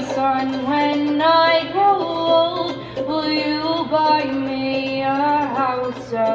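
A woman singing to her own ukulele strumming, holding several long notes.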